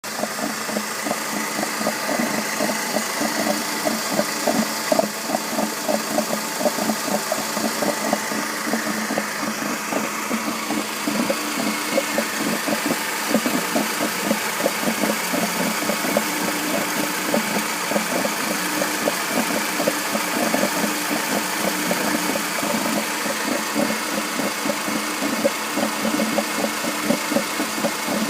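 BMW E46 318i's M43 four-cylinder engine idling with a fast, even 'go-go-go' knocking from the accessory belt area, a noise that stays with the cooling fan switched off. The owner does not know its cause and suspects the belt rubbing or a worn pulley bearing.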